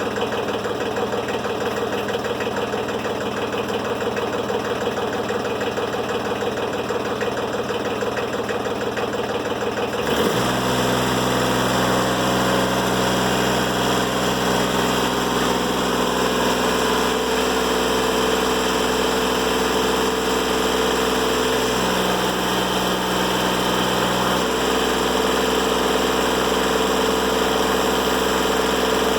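Timberking 1400 sawmill's diesel engine idling, its sound changing abruptly about ten seconds in to a slightly louder, steady run.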